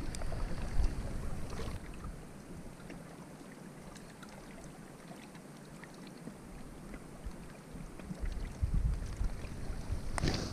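Wind buffeting an action camera's microphone, a low rumble in gusts at the start and again over the last couple of seconds, easing off in between.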